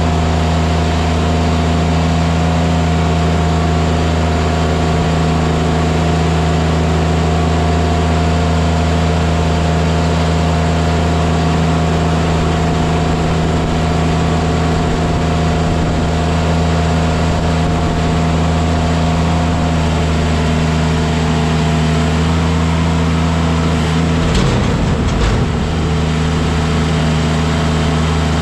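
Engine of heavy work equipment running steadily at a constant speed, with a brief rough patch near the end.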